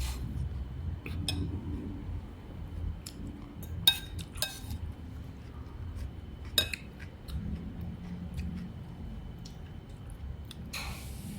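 Dishes and utensils clinking now and then, with three sharper clinks around the middle, over a low steady background rumble.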